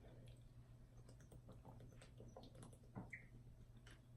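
Faint chewing: scattered soft mouth clicks and smacks while food is eaten, one a little louder about three seconds in, over a low steady hum.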